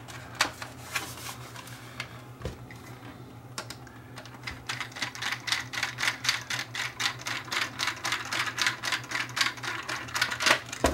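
Screwdriver turning a screw in a telephone's metal base plate: a few scattered clicks and knocks of handling, then from about four and a half seconds in a quick, even run of clicks about four a second. A faint low hum sits underneath.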